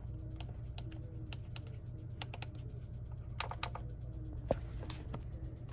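Plastic push buttons on an Icom IC-7700 front panel being pressed one after another, each giving a short click. A cluster of clicks comes about three and a half seconds in and a sharper one a second later, over a steady low hum.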